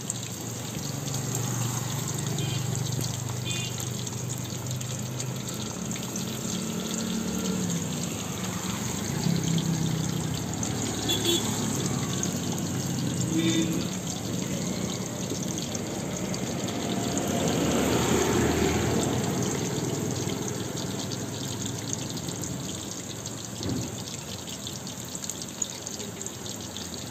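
Chicken lollipops deep-frying in a kadai of hot oil: a steady bubbling sizzle, swelling for a couple of seconds past the middle.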